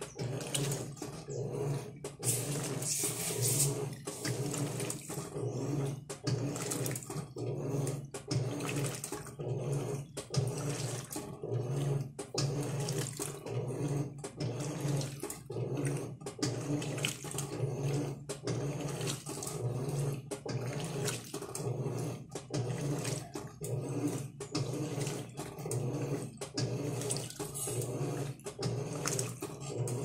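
Electrolux LM08 8 kg top-loading washing machine agitating a full load: the motor hums and the water and clothes slosh around the agitator, pulsing in a steady, even rhythm.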